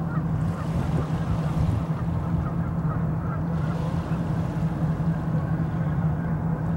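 A steady low rumble, with many brief, faint honking bird calls scattered over it.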